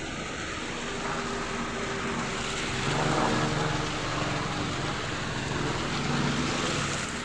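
Steady rush of falling water from a mountain waterfall or stream. A faint low drone joins about three seconds in.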